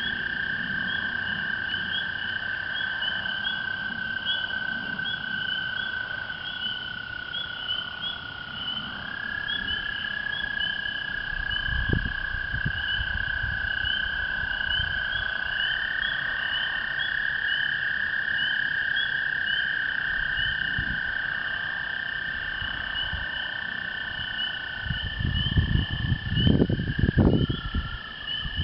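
American toads giving long, steady, high trills that overlap, one toad starting as another stops, over the continuous high peeping of a spring peeper chorus. Near the end a few loud, low, rough bursts cut in.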